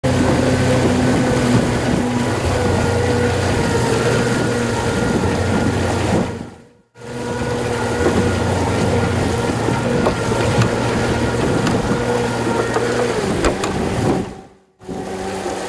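Honda 250 outboard motor running steadily with the boat under way, mixed with a rush of wind and water. The sound fades out briefly about six and a half seconds in and again near the end, then returns.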